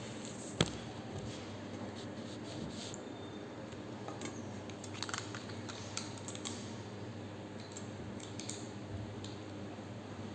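Hands handling a plastic Beyblade launcher and its parts: small scattered plastic clicks and rubbing, with one sharp click about half a second in.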